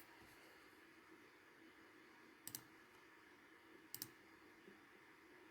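Computer mouse clicking twice in quick pairs, about two and a half seconds in and again at four seconds, over a faint steady hum.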